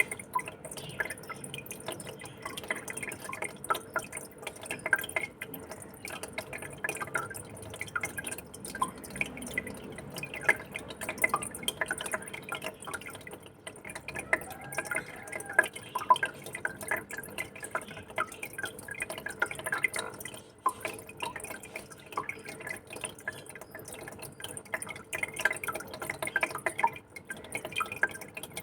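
Aquarium water trickling and dripping with constant irregular small plinks and splashes, over a faint steady hum.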